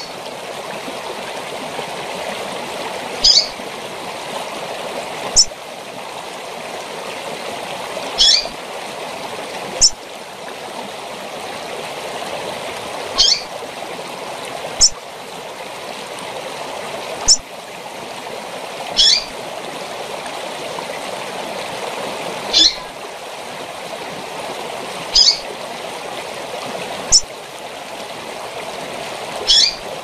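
Female double-collared seedeater (coleiro) giving short, high, falling calls, about one every two seconds, a dozen in all. The steady rush of a waterfall runs underneath.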